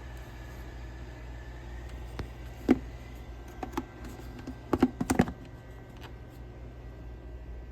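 Small clicks and knocks from eggs and a candling light being handled, over a steady low hum. The taps come singly at first, then bunch into a quick cluster of louder knocks about five seconds in.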